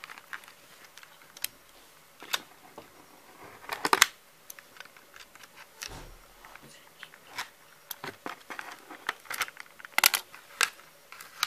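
Clear plastic packaging tray and cardboard backing of a boxed doll being handled: scattered clicks, taps and crinkles, with a louder cluster about four seconds in and another about ten seconds in.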